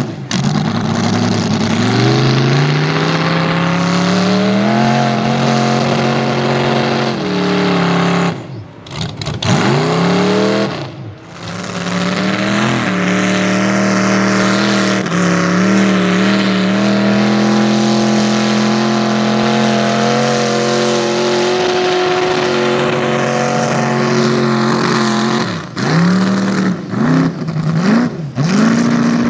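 Pickup mud truck's engine revving hard under load as it churns through deep mud, its pitch climbing, dipping briefly twice when the driver lifts off the throttle, then held high and steady before a run of quick throttle blips near the end.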